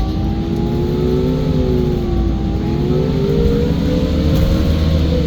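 IIA Menarinibus Citymood 12 CNG city bus under way, its heavily soundproofed natural-gas engine giving a low rumble beneath a steady whine that drifts slowly up and down in pitch.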